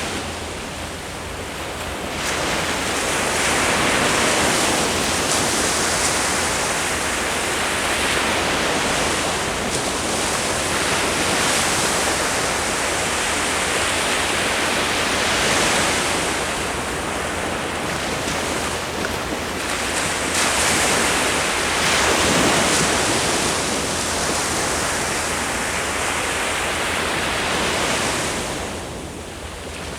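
Ocean waves breaking and washing on the shore, a continuous rush of surf that swells every few seconds as each wave comes in, with some wind on the microphone.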